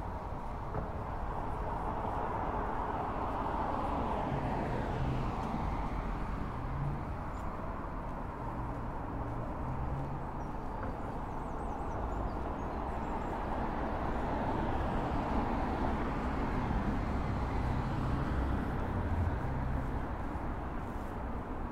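Street traffic ambience: a steady hum of road traffic with a low rumble, swelling twice as vehicles pass, once a few seconds in and again about a quarter of a minute in.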